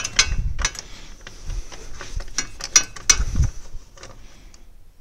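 Socket ratchet on a long extension clicking and knocking as the 13 mm battery hold-down bolt is unscrewed all the way out. The clicks thin out after about three and a half seconds.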